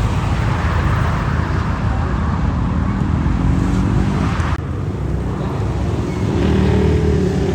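Motorcycle engines running close by amid road traffic noise, with a low, steady engine note and a slight rise in pitch near the end. The sound changes abruptly about four and a half seconds in.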